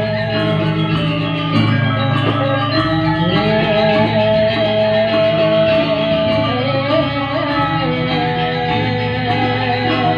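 Music with a sustained, slightly wavering melody over a steady repeating bass line.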